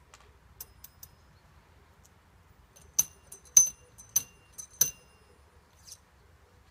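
Steel ramrod clinking in the barrel of a muzzle-loading underhammer pistol as the charge is rammed home. A few light taps come first, then a run of six sharp, ringing metallic clinks over about two seconds, and one softer tap near the end.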